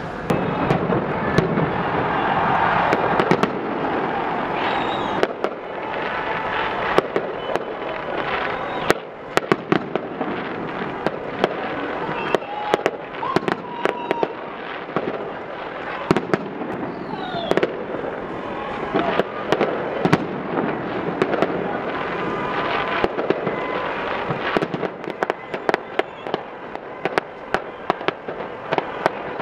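Fireworks display: aerial shells bursting in a quick, irregular string of sharp bangs and crackles over a steady rush of noise.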